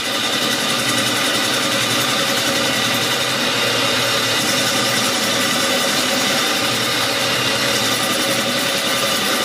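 Metal-turning lathe running, its chuck spinning a round metal bar while the cutting tool works the bar's end face. The sound is a steady mechanical drone with several steady whining tones.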